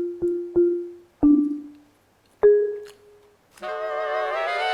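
Background music: a quick run of short repeated struck notes on one pitch, two single notes after short gaps, then a sustained full chord entering near the end.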